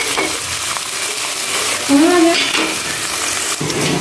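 Shrimp and onions frying in oil in an aluminium pot, a steady sizzle as ground spices, chilli and garlic paste are tipped in on top.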